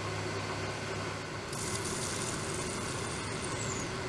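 Small metal lathe running while machining a tiny engine part, first drilling a small hole, then cutting with a lathe tool. From about a second and a half in, a thin high whine joins the running sound and falls slightly in pitch near the end.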